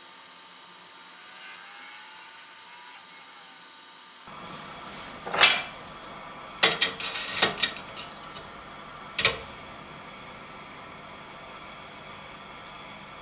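Gas torch hissing steadily as its flame heats steel clamped in a vise. From about five to nine seconds in come several sharp metal clinks and knocks, the first and loudest on its own, then a quick cluster, then one more.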